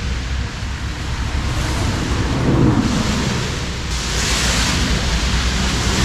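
Wind buffeting the microphone, a loud rushing noise with heavy low rumble, with a brighter hiss that swells about four seconds in.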